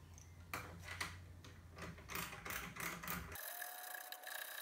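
Light, repeated clicking, about three clicks a second, from a hand tool undoing a screw on a corner support of the printer frame.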